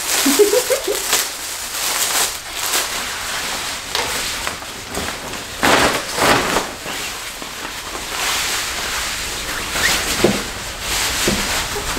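Nylon hair-cutting cape rustling and swishing as it is shaken out and swung over the shoulders of a seated person, in uneven crinkly bursts.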